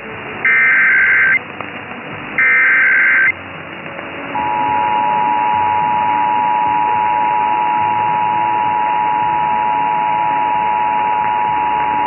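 Emergency Alert System SAME header: two loud bursts of buzzy digital data tones, about a second each, followed about four seconds in by the steady two-tone EAS attention signal (853 and 960 Hz sounding together), marking a test alert.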